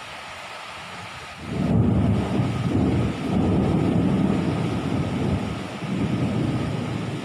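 Steady rain hiss, then about a second and a half in a deep rolling thunder rumble swells up suddenly and rolls on in waves, easing a little near the end.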